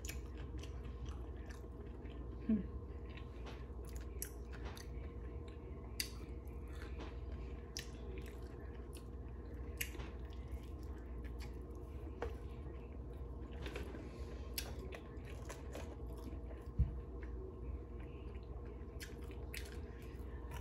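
A person chewing and biting into a sandwich, with scattered short crunchy clicks of eating. A faint steady hum runs underneath.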